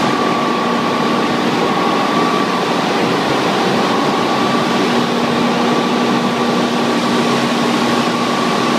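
Pelton-wheel water turbine and its generator running at speed: a steady machine noise with a high whine and a lower hum over a dense rush.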